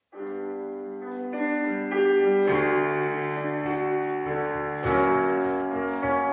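Instrumental piano introduction to a children's song, starting suddenly from silence: sustained chords over a bass line, growing louder about two seconds in.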